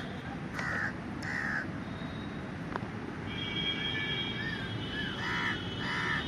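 Crows cawing: three harsh caws at the start, then a run of caws about every half second near the end. Other birds chirp faintly.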